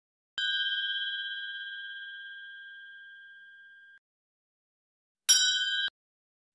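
Bell-like ding sound effects of a subscribe-button animation. One ding rings out and fades over about three and a half seconds. About five seconds in, a second, shorter ding with a sharp attack is cut off after about half a second.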